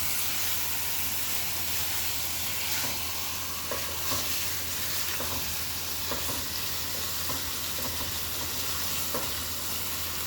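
Chicken and onions sizzling as they sauté in a hot pan, with a steady frying hiss and scattered short clinks and scrapes of a spoon stirring.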